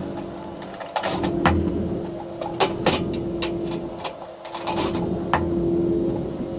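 Cordless drill motor running in a steady hum, dropping out briefly about a second in, while bolts are driven into the grill cart's steel frame, with scattered sharp metallic clicks and taps from the bolts, washers and panel.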